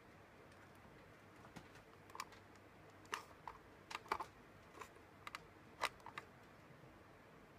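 Irregular light clicks and taps, about a dozen over some five seconds, starting about a second and a half in.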